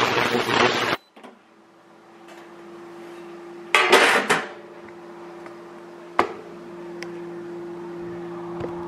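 Ultrasonic parts cleaner running with a loud hiss, cut off about a second in, leaving a steady low hum. A metal basket of steel connecting rods clatters against the stainless tank near four seconds in, then one sharp metal clank follows.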